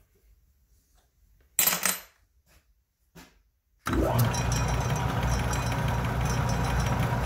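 Atlas metal lathe switched on about four seconds in, its motor and drive then running steadily with a low hum. A brief knock comes about a second and a half in, before the lathe starts.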